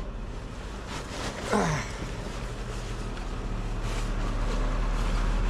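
A vehicle engine running steadily nearby, growing a little louder toward the end. A brief falling sound cuts across it about a second and a half in.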